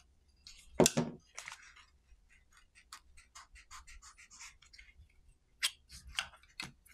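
Hands handling small plastic light accessories in a foam-lined hard case. A loud click comes about a second in, then a stretch of light scratching and rustling, then a few sharp clicks near the end.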